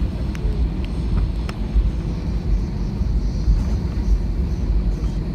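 Airbus A320 airliner making a steady low rumble, with a few faint clicks in the first second and a half.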